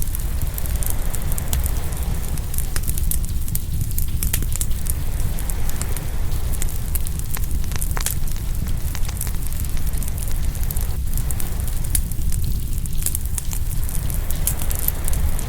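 Open fire crackling and popping, with many sharp irregular clicks over a steady low rumble.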